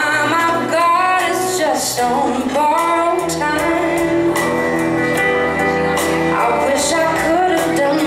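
A live band playing a song with a woman singing lead: electric guitar, electric bass, acoustic guitar and drums with cymbal hits.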